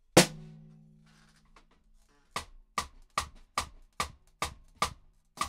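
Fully detuned snare drum, its head slack enough to wrinkle, struck with a drumstick: one hard hit with a low ring that dies away over about two seconds, then a steady run of eight strokes about two and a half a second, quickening right at the end.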